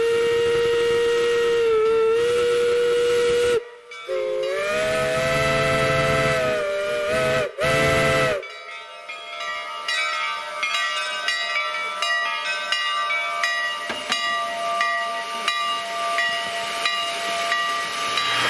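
Two-foot-gauge steam locomotive whistles: a long steady blast of about three and a half seconds, then a longer blast of several pitches sounding together that waver, and a short third blast about eight seconds in. After that a quieter steady mix of tones continues over a hiss.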